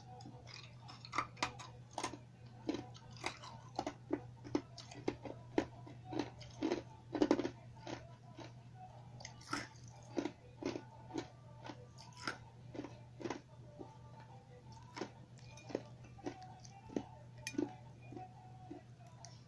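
Ice cubes being chewed and crunched between the teeth close to the microphone. The crunches are sharp and irregular, coming thickly at first and more sparsely near the end, over a steady low hum.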